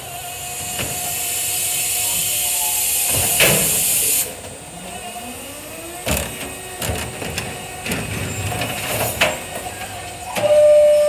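Electric side-loader garbage truck's automated arm lifting and tipping a wheelie bin. A hiss builds for about four seconds and cuts off. Then come a series of knocks and bangs as the bin is shaken out and set down, over a motor whine gliding up in pitch, and a steady whine starts near the end.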